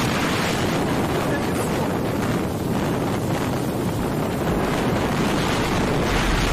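Storm wind and heavy driving rain, a steady rushing noise, with gusts buffeting the phone's microphone as a low rumble that grows near the end.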